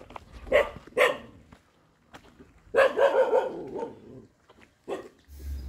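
A dog barking: two short barks about half a second apart, a longer run of barks about three seconds in, and one more bark near the end.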